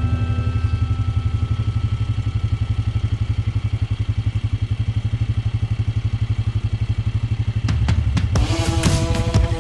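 Riding mower engine idling with a steady, even low pulse. About eight seconds in, a series of sharp knocks and rattles breaks in.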